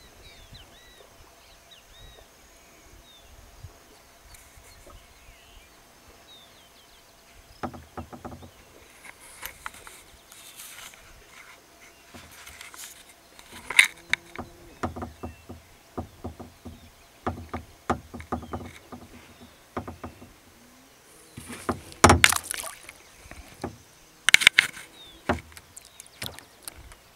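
Kayak paddling: paddle blades dipping and splashing, with water dripping and sharp knocks at irregular strokes. It starts about eight seconds in, after a quiet stretch with faint chirping.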